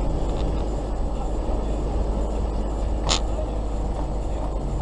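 Steady vehicle rumble and road noise, with one brief, sharp high-pitched sound about three seconds in.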